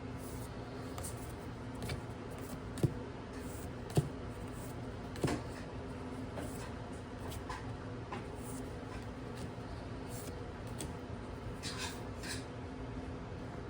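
Handling noises from an unboxing: light scattered rustling and three sharp knocks or clicks in the first half, over a steady low hum.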